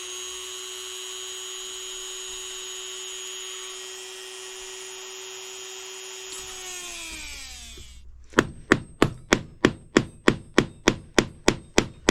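A small high-speed power tool, a rotary tool taking a little metal off the spring-steel part, runs with a steady whine, then winds down and stops about two-thirds of the way in. Then come sharp, evenly spaced metallic taps about four a second: light hammer blows peening the part over.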